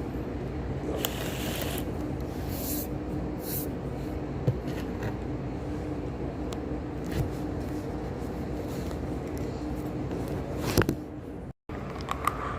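Scraping and clicking of hands working at a laptop's plastic bottom case, trying to pry it off after its screws are out, over a steady low hum. A few scraping stretches come in the first few seconds, then single clicks, and the sound cuts out for a moment near the end.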